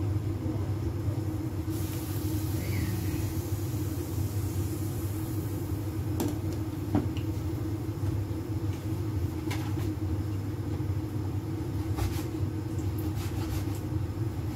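Steady low rumble of a tabletop gas stove burner heating a lidded pot, with a few faint light clicks.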